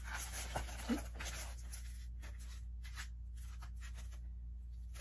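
Light scratchy rustling and small clicks from plastic Easter eggs and craft materials being handled on a work table, over a low steady hum.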